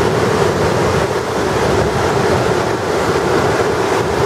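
Floodwater pouring from open spillway gates and rushing down a dam's concrete spillway chute during a flood release: a loud, steady rush of water.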